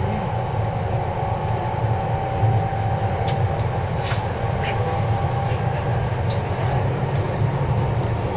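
JR East 253 series electric limited express train running along the track, heard from inside the passenger cabin: a steady rumble of wheels on rails with a faint whine that fades out around the middle, and a few light clicks.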